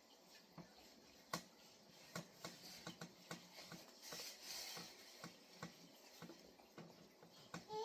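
Faint wiping of a cloth on a fridge door: scattered light taps and squeaks, with a longer rubbing swish about four seconds in.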